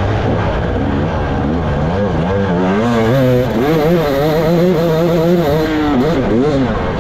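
Off-road motorcycle engine heard on board, revving up and down constantly as the throttle is worked. Its pitch climbs highest about halfway through, then drops back.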